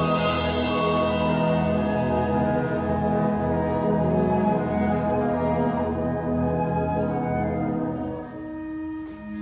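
Wind ensemble playing held chords with the brass prominent, thinning out and getting quieter about eight seconds in.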